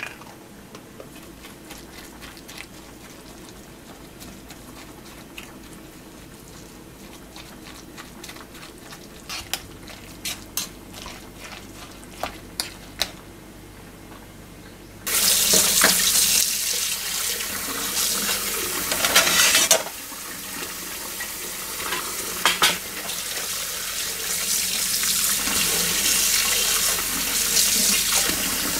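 A metal spoon clicks a few times against a metal pot while a salad is stirred. About halfway through, tap water starts running suddenly into a pan in a kitchen sink and splashes around a hand working in the water; it is the loudest sound.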